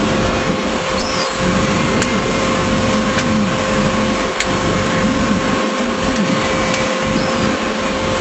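Fishing boat's engine running with a steady drone and a constant hum.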